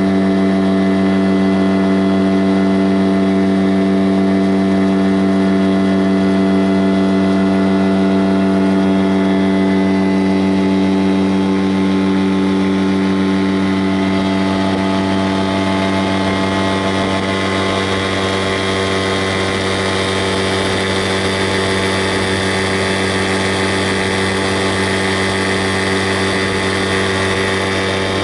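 An engine running at a steady, unchanging speed with an even hum. Partway through, a hiss in the higher range grows a little.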